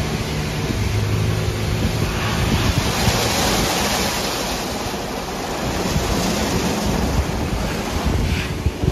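Istobal M'Start rollover car wash brushes spinning and scrubbing a wet car, a steady rushing swish of soaked bristles and water, over a low steady hum from the machine.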